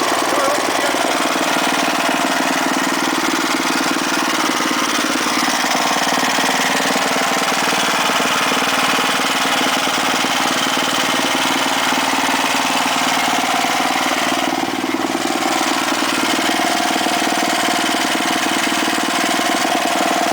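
Toro Powershift 1028 snowblower's 10 hp Tecumseh Snow King OHV engine running steadily, dipping briefly about fifteen seconds in.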